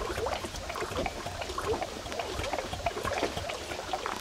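Small waves lapping and trickling against an aluminium boat hull in short, irregular splashes, over a low steady rumble.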